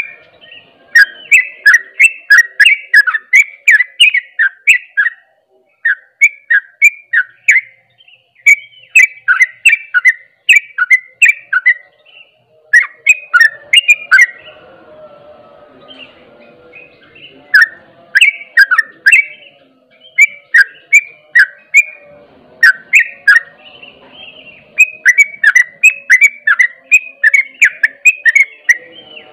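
Yellow-vented bulbul (trucuk) singing its fast 'ropel' song: loud runs of short, sharp chirping notes, about four a second, in bursts broken by brief pauses.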